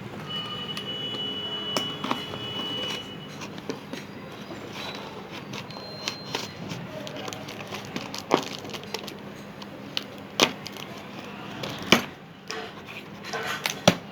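Hands unpacking a soldering kit, handling its tools and packaging: scattered clicks and light knocks, a few sharper ones in the second half.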